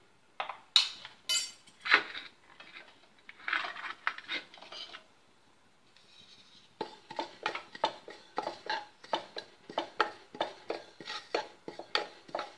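A spatula stirring sesame seeds dry-roasting in a ceramic-coated kadai: a few sharp clinks on the pan at first, then from about seven seconds in a steady run of scraping strokes against the pan, about three a second.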